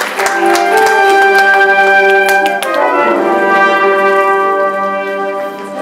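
A live school pit orchestra playing a waltz in held chords, with a change of chord about three seconds in.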